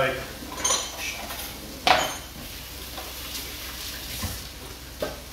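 Kitchen utensils and dishes being handled on a benchtop: a light metallic clink under a second in, a sharp clack about two seconds in, then a few lighter knocks.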